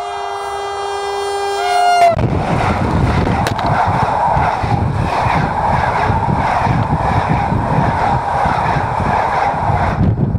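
Electric train's horn sounding a sustained multi-tone chord that drops in pitch and cuts off about two seconds in. Then a loud rumble and clatter of the train's wheels rolling over the rail right beside the microphone for about eight seconds.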